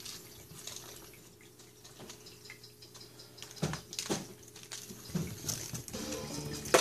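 Kittens moving about on a wood floor: scattered light taps and knocks, with a sharper click near the end, over a faint steady hum.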